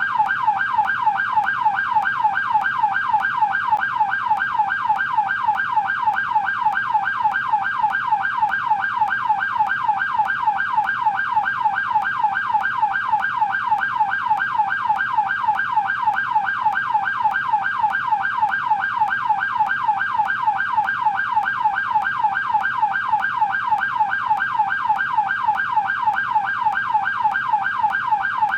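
American police car electronic siren on the yelp tone: a fast, even up-and-down sweep repeating several times a second without a break.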